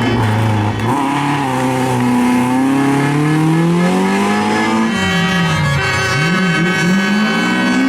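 Rally car engine at high revs under hard throttle, its pitch climbing steadily for about three seconds, then falling away as the driver lifts, wavering, and climbing again near the end.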